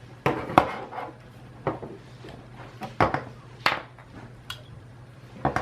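Hard plastic clicks and knocks from handling a PS4 controller taken apart, its circuit board and plastic chassis being turned over and set down; about seven separate taps, the loudest about half a second in and near three seconds in.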